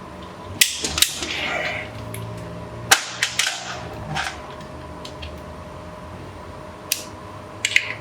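Sharp metallic clanks and clicks, in scattered groups of one to three, some with a short rattle after: metal tools and engine parts being handled and set down. A faint steady hum sits underneath.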